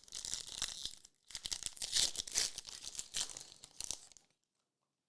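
The wrapper of a 2021-22 Optic basketball hobby pack being torn open and crumpled. It comes in two bursts: a short one, then a longer one of about three seconds.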